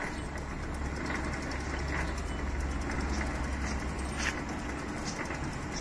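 Sonalika DI 745 tractor's diesel engine being turned over by hand-spinning the jacked-up rear wheel, a low rumble that swells and then eases without the engine catching.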